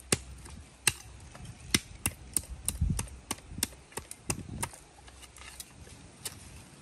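A blade chopping: a quick run of sharp strikes, two to three a second, a few of them heavier and deeper.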